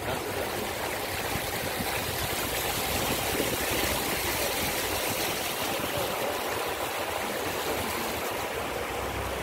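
Steady rushing and splashing of muddy floodwater as a vehicle drives through it where it covers the road.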